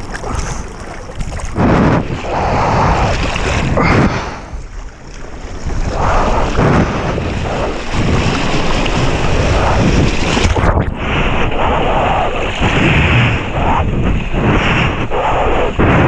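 Wind buffeting the microphone over breaking shore-break waves and water splashing around the rider, in loud uneven surges. The sound turns duller about two-thirds of the way in.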